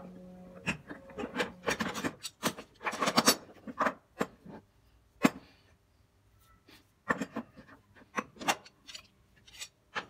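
Handling noise of brass pipe fittings and a steel C-clamp on a wooden workbench: irregular clicks, knocks and short scrapes, densest and loudest in the first few seconds and sparser after.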